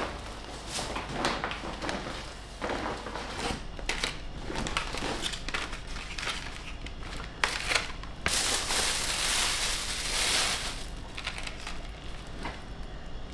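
Plastic shopping bags and grocery packaging rustling and crinkling as groceries are unpacked, in many short crackles. Near the middle comes a longer, louder rustle lasting about three seconds.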